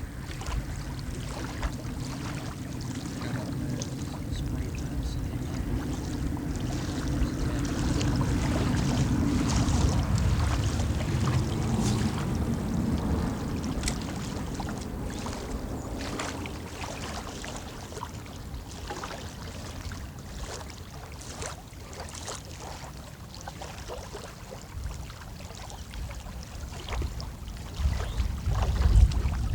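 Water lapping and splashing at the bank, with wind buffeting the microphone and a low rumble throughout.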